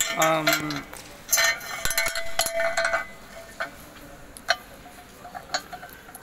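Light metal clinks and taps as steel parts of a power weeder's gear-handle assembly are handled: a small lock being fitted to the gear rod against the painted steel frame. A stretch of clatter comes first, then a few separate sharp clicks about a second apart.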